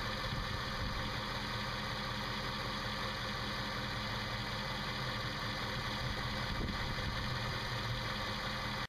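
A Jeep Grand Cherokee 4.7-litre V8 idling steadily while air is worked out of the cooling system, with the bleed plug still open.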